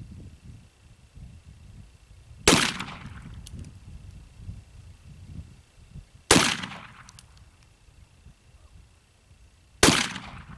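Three shots from an 1858 Remington Navy .36-calibre black-powder cap-and-ball revolver, each a sharp crack with a short tail of echo, about three and a half seconds apart.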